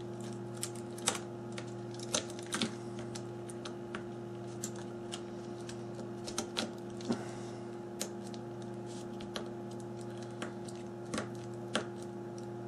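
Irregular small clicks and taps as a smartphone's motherboard and ribbon-cable connectors are pressed into place, over a steady low hum.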